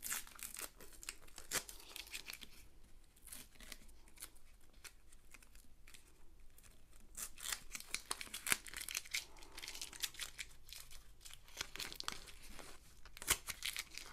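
Adhesive tape being peeled off a rolled, paper-wrapped canvas in short rasping pulls, with paper crinkling and rustling as the roll is turned in the hands.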